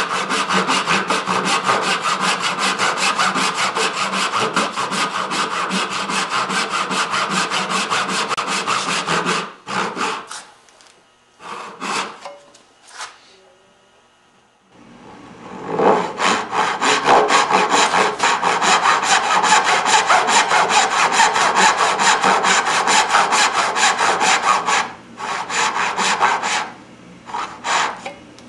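Hand saw cutting dovetail tails in hard maple with quick, rhythmic back-and-forth strokes. There are two long runs of sawing with a pause of a few seconds between them, and a few short strokes near the end.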